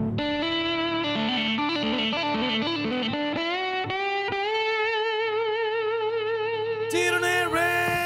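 Steel guitar played with a slide bar: a run of quick picked notes, then notes sliding upward into long held notes with a wide, wavering vibrato.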